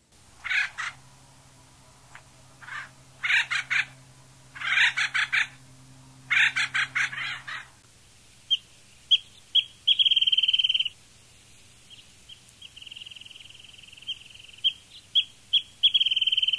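A run of harsh, raspy bird calls, then a wrentit singing: clear high notes that speed up into a rapid trill like a bouncing ping-pong ball, heard three times.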